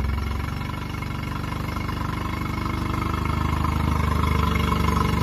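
Brand-new Honda 15 hp four-stroke twin-cylinder outboard idling steadily, seconds after its first-ever start.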